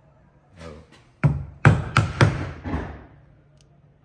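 Wooden carpenter's mallet striking the handle of a bench chisel, about five sharp knocks in quick succession starting about a second in. The chisel is chopping out the waste of a housing joint in a softwood board.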